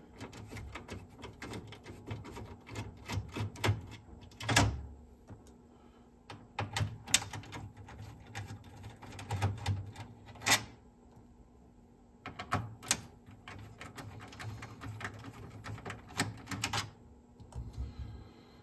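Irregular clicks, taps and knocks of the Technics RS-BX707 cassette deck's plastic and metal parts being handled during disassembly, with a few sharper knocks among lighter clicking and short pauses in between.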